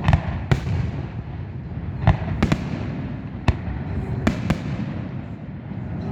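Aerial firework shells bursting in a display: about seven sharp bangs at irregular intervals, over a continuous low rumble of more distant bursts.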